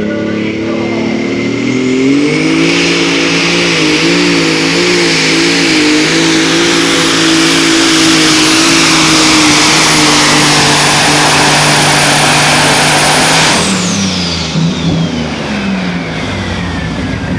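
A pulling vehicle's engine is brought up to full power about two seconds in and held there, loud, with a high steady whistle over it. About 13 seconds in the throttle is chopped and the engine drops back, while the high whistle winds down in pitch over the last few seconds: the end of a pull.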